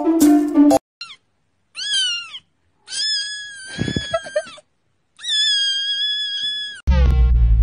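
Kitten screaming in a string of high-pitched meows. A brief one comes about a second in, then a shorter cry that falls at its end, then two long, drawn-out, level cries. A chiming tune cuts off just before the first meow, and synth music with a bass line starts near the end.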